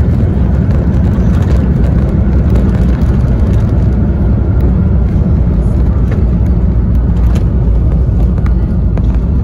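Inside the cabin of an Airbus A350-1000 rolling out on the runway just after touchdown, spoilers raised: a loud, steady low rumble of the Rolls-Royce Trent XWB engines, airflow and wheels as the airliner slows down.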